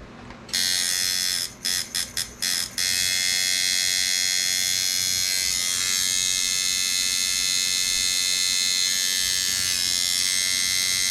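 Handmade J-frame coil tattoo machine, set up as a shader, buzzing on about 6.5 volts with a high, even buzz. It starts about half a second in, is switched off and on again several times in quick succession around two seconds in, then runs steadily until it cuts off at the end; the builder judges it well tuned.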